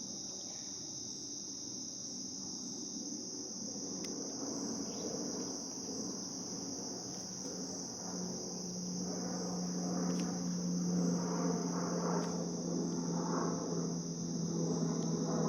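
Steady, high-pitched insect chorus, a continuous trilling drone. A low steady hum and irregular lower sounds grow louder in the second half.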